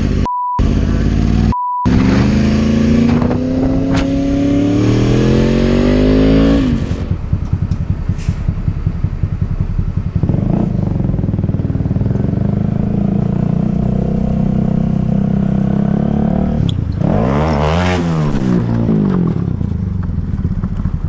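Two short censor bleeps, then a motorcycle engine revving up in a rising note for a few seconds, settling to a slower pulsing and then steady running, with a brief rise-and-fall in pitch near the end as a vehicle passes.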